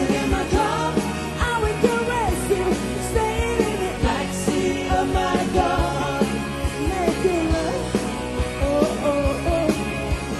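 Live rock band playing a song: a woman singing the lead over electric guitars and a steady drum beat.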